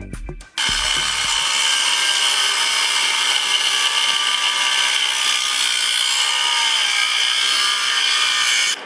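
Handheld power tool working into rock and running steadily. It starts about half a second in and cuts off just before the end.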